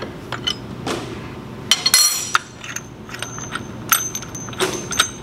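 Wrench and homemade steel front main seal installer clinking and clicking as the installer is tightened until it stops turning, pressing the front main seal home. A cluster of sharp metallic clinks comes about two seconds in, with scattered clicks after.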